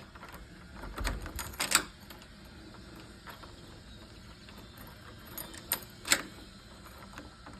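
A few sharp clicks and light knocks, spaced irregularly, from handling the newly installed electronic deadbolt.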